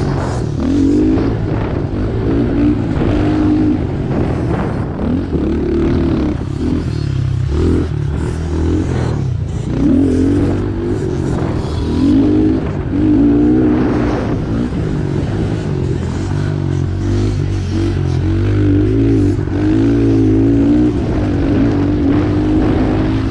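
A stock Honda CRF110F's small air-cooled four-stroke single-cylinder engine revved hard and eased off again and again as the bike is ridden hard over a dirt track, its pitch climbing and dropping over and over, with occasional knocks from the chassis.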